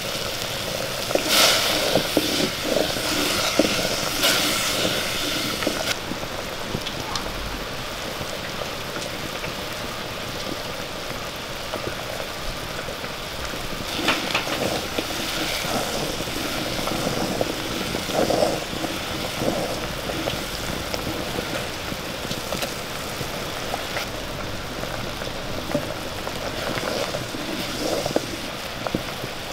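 Shallots and jaggery syrup boiling hard in a clay pot, a steady bubbling hiss. A wooden spoon scrapes and knocks against the pot as it is stirred, near the start, again about halfway, and briefly near the end.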